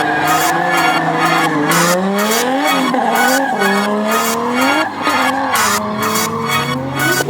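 A drift car's engine revving up and down repeatedly as it slides, with tyres squealing, over electronic music with a steady beat.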